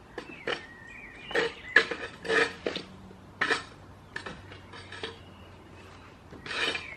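Goats nuzzling and mouthing at a person's hands and clothing: a run of short, irregular rustles and clicks.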